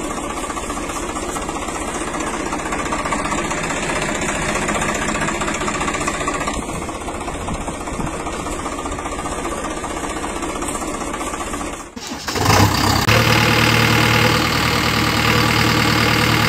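Tractor engine sound effect running steadily, dubbed over toy vehicles; about twelve seconds in it cuts off sharply and a second, louder engine sound takes over.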